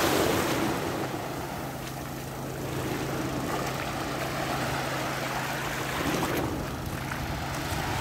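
Small waves breaking and washing up a sandy shore, with a steady low engine hum underneath.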